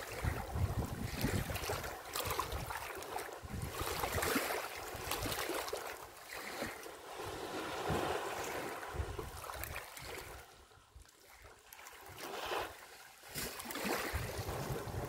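Elephants splashing and wallowing in a waterhole, with wind buffeting the microphone in uneven gusts. It drops quieter for a second or two about two-thirds of the way through.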